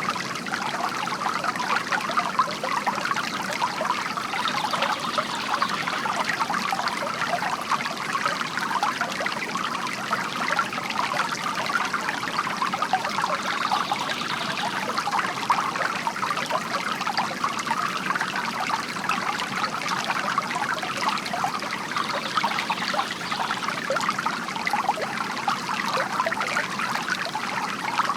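Water trickling steadily from a bamboo garden fountain, an even splashing with no breaks.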